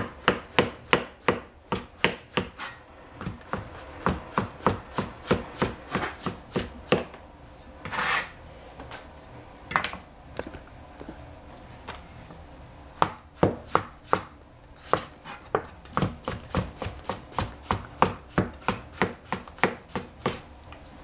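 Kitchen knife chopping shiitake mushrooms on a cutting board: sharp, even knocks at about three a second, with a break of several seconds in the middle.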